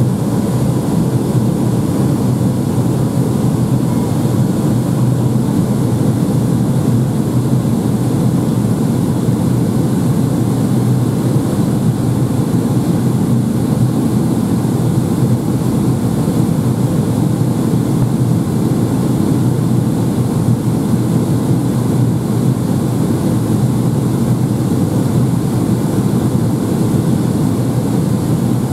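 Steady cabin drone of a Boeing 757-200 in flight on descent: engine and airflow noise heard from inside the cabin at a window seat, with a faint steady whine.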